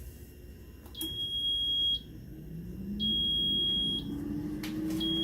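Instant Vortex Mini air fryer running as it starts a cycle: three long, high beeps about a second each, spaced about two seconds apart, while its fan starts about two seconds in and spins up with a hum that rises steadily in pitch.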